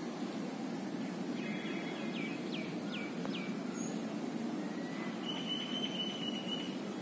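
Outdoor ambience: a steady low rumble of background noise, with small birds calling over it, a run of four short falling chirps a couple of seconds in, then a high trill lasting about a second near the end.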